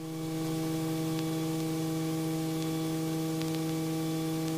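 Steady electrical hum with a layer of hiss, as heard through an aircraft intercom or headset audio feed. It fades in over the first half-second and then holds level, with a few faint ticks.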